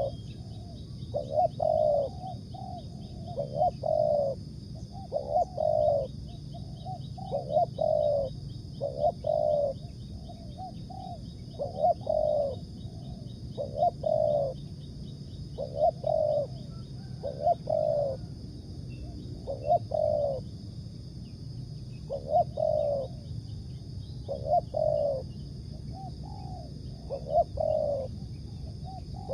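Spotted dove cooing over and over, a short phrase of a few coos about every two seconds. A steady high-pitched drone runs underneath.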